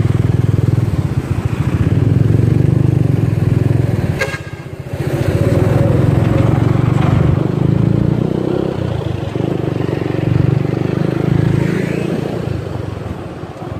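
Motorcycle ridden through city traffic: its engine running under the rider with steady wind and road rumble, dipping briefly about four to five seconds in.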